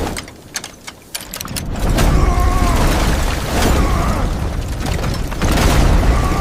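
A few sharp mechanical clicks, then from about a second in a loud, low rumble of heavy machinery, with creaking sounds rising and falling over it.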